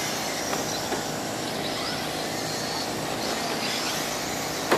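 Radio-controlled late model race cars running laps on a dirt oval: high-pitched motor whines rise and fall over a steady hiss. A single sharp knock comes near the end.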